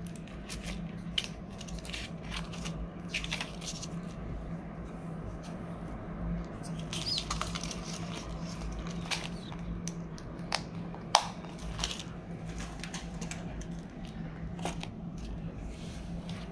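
Hands handling clear plastic binder pouches, paper notes and coins: plastic crinkling and rustling, broken by small sharp clicks and taps, the loudest about eleven seconds in. A steady low hum runs underneath.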